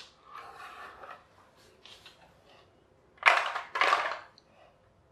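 A plastic toy tractor handled on a wooden parquet floor: light knocks and clatter, then two louder, short scrapes about three seconds in.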